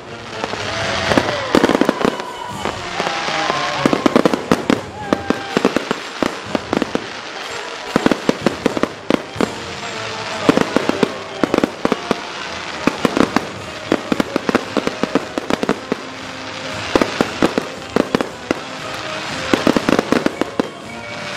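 Fireworks display: gold crackling shells bursting in rapid clusters of bangs and crackles, a new volley every second or two.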